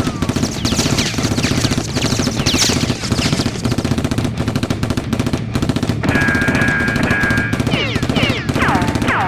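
Sustained automatic gunfire sound effects, many shots a second without a break, with short falling whistles over them and a steady high tone for about a second and a half past the middle.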